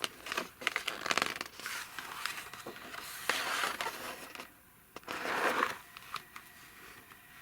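Handling noise: irregular rustling, crinkling and scraping with scattered clicks, dropping quieter about four and a half seconds in before a further rustle and a few clicks.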